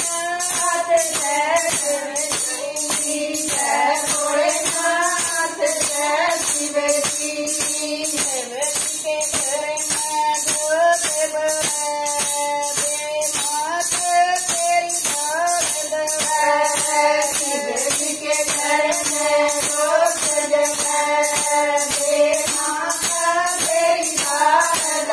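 Women singing a Haryanvi devotional bhajan together in unison, over a steady jingling percussion beat of about two strokes a second.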